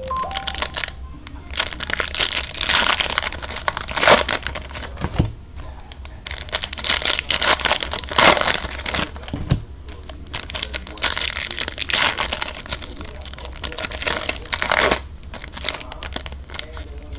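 2020 Topps Chrome trading-card pack wrappers crinkling and tearing as the packs are handled and opened, in several long bursts.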